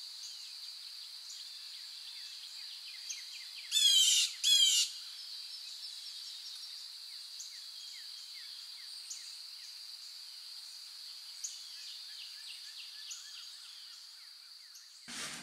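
Outdoor wildlife ambience: a steady high buzzing drone with faint scattered chirps, and two short, loud, rapid chirping trills close together about four seconds in.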